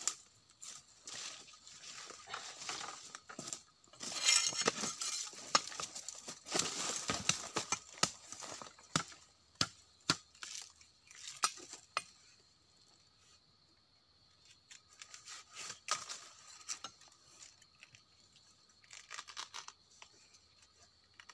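A fibrous plant stalk is being cut and stripped by hand to get at its edible core. Irregular snaps, rips and crackles come thick and fast for about twelve seconds, then thin out to a few now and then.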